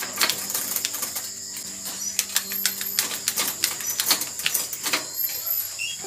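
Rapid, irregular metallic clicks and knocks of bicycle parts and tools being handled while a mountain bike is assembled.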